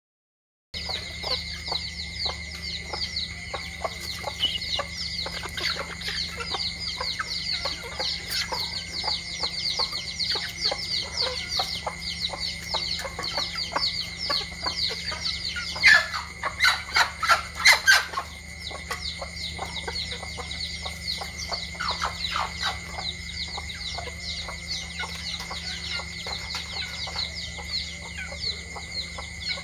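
Domestic chickens feeding: chicks peeping over and over in quick high chirps while hens cluck, with a louder run of clucks just past halfway.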